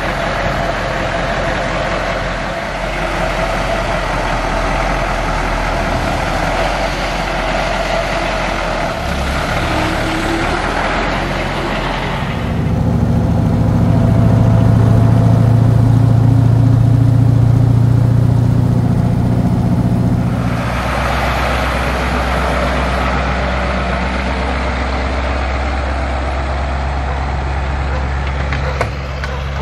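Turbocharged Caterpillar 3208 V8 diesel of a mini semi truck running, heard from outside as a broad rush over a low engine hum. About twelve seconds in it switches to a louder, deep engine drone heard inside the cab while driving. That lasts about eight seconds before going back to the outside sound.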